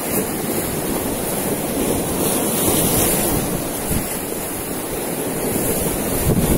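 Strong wind and heavy surf on a beach, a steady rushing noise throughout.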